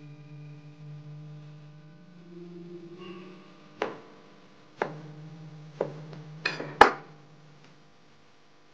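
Background music with sustained tones, punctuated by sharp knocks about a second apart, the loudest near the end. The tones fade out shortly before the end.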